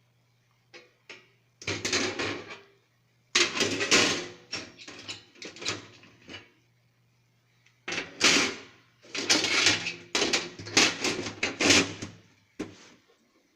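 Hard parts of a desktop computer being handled: clattering and scraping in three long spells of rapid knocks, over a faint steady low hum.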